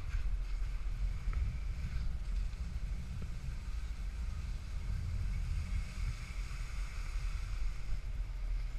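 Steady low wind rumble on a handheld action camera's microphone, with a faint even hiss of skis sliding over packed snow.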